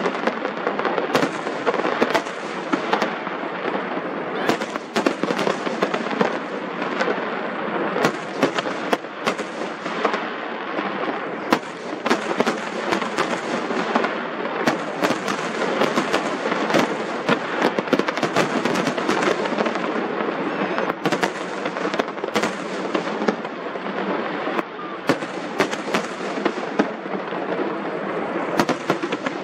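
Fireworks display: a dense, unbroken crackle with frequent sharp bangs of shells bursting.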